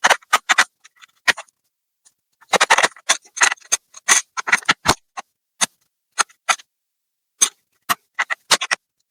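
Irregular sharp clicks and short scrapes of a screwdriver and small tools working at screws and plastic parts of a laptop, likely on a stuck screw. They come in a dense run a few seconds in, then as scattered single clicks.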